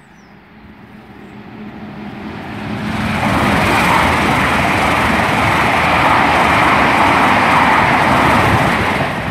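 Great Western Railway express train passing through the station at speed without stopping, running electric with its pantograph up. The rush of wheels on rail and air swells over the first three seconds, then holds loud and steady as the coaches go by.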